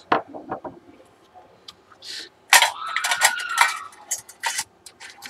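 Handling of an opened Samsung SyncMaster 226BW LCD monitor: a few light clicks and knocks, then about a second of clattering and rattling of its sheet-metal chassis and shield, followed by more scattered clicks.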